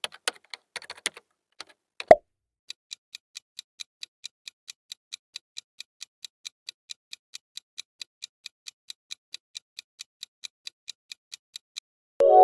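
Countdown-timer sound effect ticking like a clock, about three ticks a second, as the quiz timer runs down to zero. It is preceded by a quick run of typewriter-style clicks and a single loud pop, and a bright pitched chime starts near the end as the time runs out.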